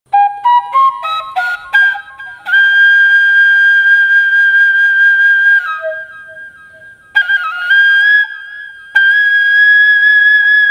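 Background music on a solo flute: a quick run of short notes, then long held notes, with a short break about two-thirds of the way through.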